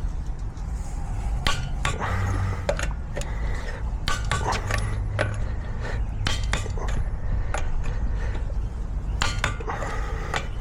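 Metal tools and parts clinking and clattering: a run of irregular sharp clicks and knocks, over a steady low rumble.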